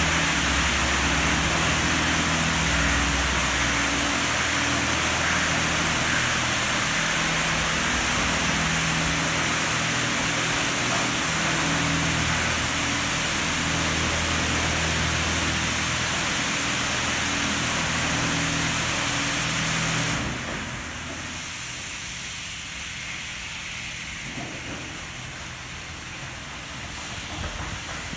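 Oasis Typhoon touchless car wash spraying a car at high pressure: a loud, steady hiss of water jets with a low pump hum underneath. About twenty seconds in the spray stops abruptly, leaving a quieter hiss.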